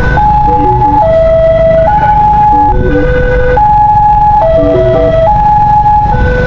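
Ambulance's electronic siren sounding a hi-lo pattern: it steps between a high tone and lower tones, each held just under a second, over a steady low rumble.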